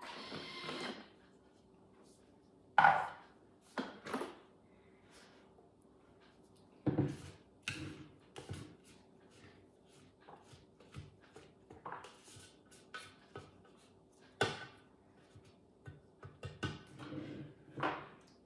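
A spatula scraping down the inside of a Thermomix's stainless-steel mixing bowl, with the lid and bowl being handled. Scattered knocks and clunks come with faint scraping between them, the loudest knock about three seconds in.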